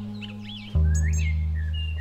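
Slow background music of sustained notes, a new low chord sounding about three quarters of a second in, with small birds chirping over it in short, quick-bending notes.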